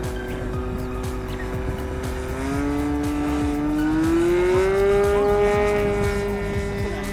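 Model aircraft's O.S. 32SX two-stroke glow engine running steadily at a high, buzzing pitch, then opening up about two and a half seconds in, its pitch rising and growing louder, as the plane rolls across the grass on its takeoff run.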